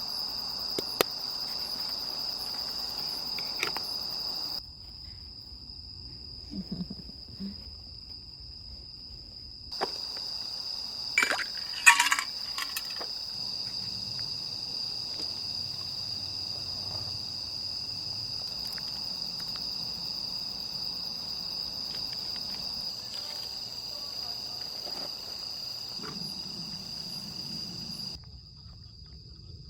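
Autumn field crickets chirring in a steady, high-pitched chorus that drops out for about five seconds near the start and returns. About eleven to thirteen seconds in, a brief cluster of sharp clicks and clinks from something being handled is the loudest sound.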